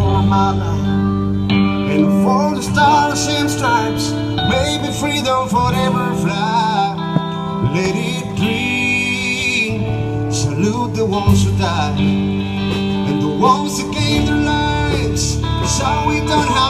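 Country band music: strummed acoustic guitar and bass notes under a wavering, sliding lead melody, an instrumental stretch with no lyrics sung.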